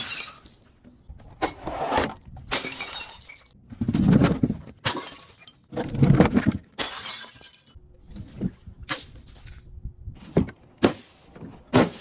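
Glass being smashed and crushed in a series of crunching, shattering bursts about every second, some landing with a heavy thud.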